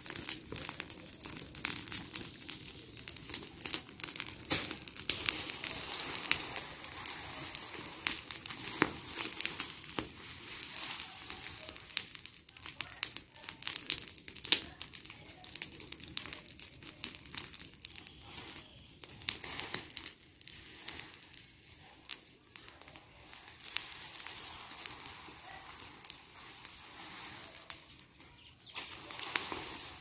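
A pile of dry branches and leaves burning, crackling with many sharp pops over a steady hiss; the pops come a little less often in the second half.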